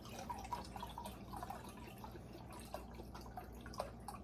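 Chicken stock pouring from a carton into a glass measuring cup, a faint liquid trickle and splash.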